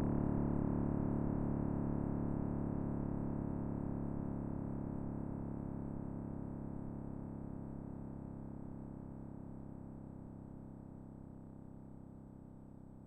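Synthesized low drone made of many steady, sustained tones, fading slowly and evenly throughout, with a faint steady high whine above it. It is presented as the sound of the Big Bang, a sonification of the cosmic background radiation.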